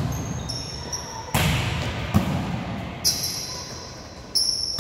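Indoor volleyball play in a gym: four sharp ball hits about a second apart, each echoing in the hall, with high squeaks of sneakers on the court after the last two.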